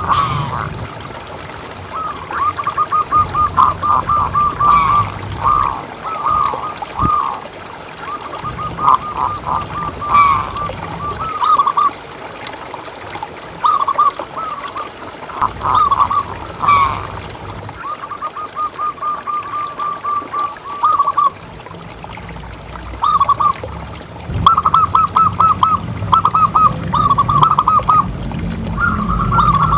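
Zebra doves (perkutut) calling: repeated phrases of quick, rattling cooing notes, each phrase a second or two long with short pauses between.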